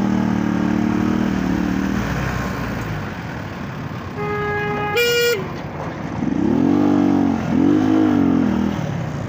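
Honda motorcycle engine revving up and down in traffic, with a vehicle horn sounding for about a second four seconds in, its pitch stepping up briefly before it stops. The engine revs rise and fall twice more near the end.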